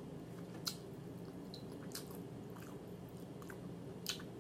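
A person chewing food close to the microphone, with three short wet mouth clicks, the loudest about a second in, over a steady low hum.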